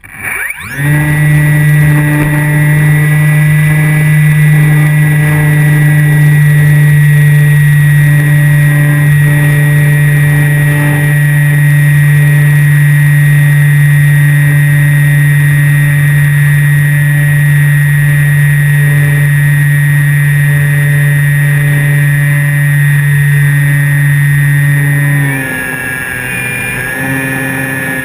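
Electric motor and propeller of a Flyzone Calypso RC plane, heard from a camera mounted under its wing. It spins up about half a second in to a steady, loud drone with a high whine, then is throttled back near the end, dropping in level and pitch.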